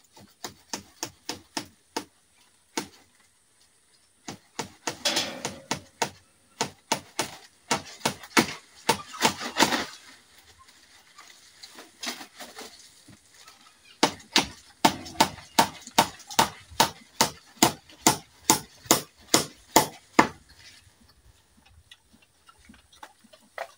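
Repeated sharp blows of a striking tool, about two or three a second, in several runs with short pauses between them, stopping a few seconds before the end.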